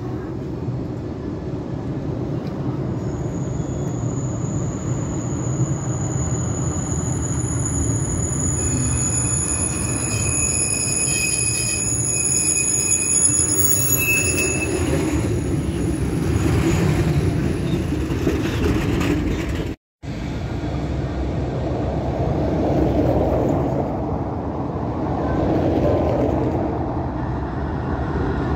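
Porto Metro CRRC light-rail tram running with a continuous low rumble. From a few seconds in until just past halfway, several high, steady tones sound over the rumble. The sound cuts out for an instant about two-thirds through, then the rumble carries on.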